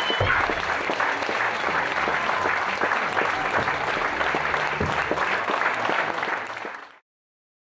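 Audience applauding steadily in a hall, fading away and stopping near the end.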